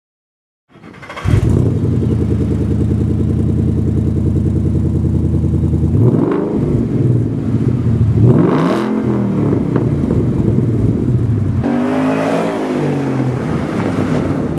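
Ford Mustang V8 exhaust through Steeda axle-back mufflers: after about a second of silence the engine comes in loud and idles steadily. It is revved briefly about six seconds in, revved higher and let fall back around eight to nine seconds, and revved again near the end.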